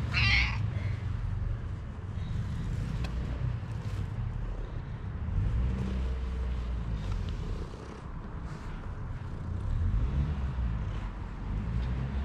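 Smoky calico cat purring close to the microphone: a steady low rumble that rises and falls in level. There is a brief sharper noise right at the start.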